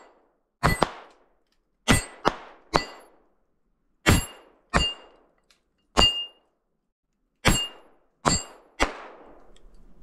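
A small-calibre semi-automatic pistol fired about ten times in quick, uneven succession. Each sharp crack is followed by a brief metallic ring from hits on a metal target. The pistol cycles through all ten rounds without a jam.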